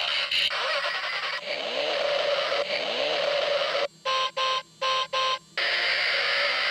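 Battery-powered transforming robot toy car playing its electronic sound effects through its small speaker: a steady noisy buzz with a few sliding tones, then about four seconds in, four short beeps in quick succession before the buzz resumes.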